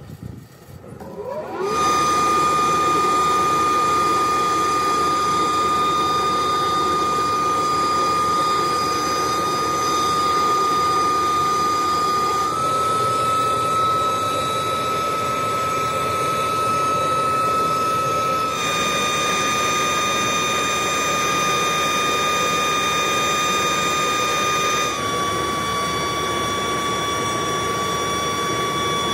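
Air blower of a rotary cast-iron melting furnace's oil-fired burner spinning up about a second and a half in, then running steadily: a loud rush of forced air and flame with a high whine. The whine's pitch steps slightly up or down a few times.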